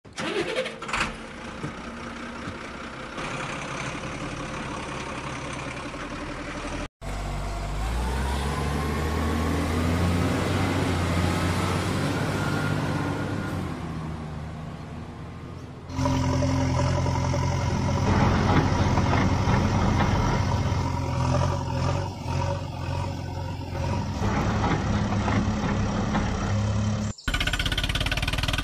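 Vehicle engine sound running and revving, rising in pitch for a few seconds in the middle stretch, broken by abrupt cuts about seven seconds in and near the end.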